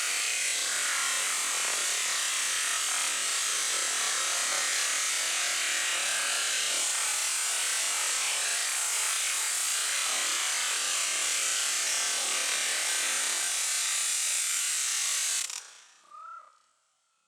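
High-pressure washer jet spraying in a steady, loud hiss, cutting off suddenly near the end. A faint short chirp follows about a second later.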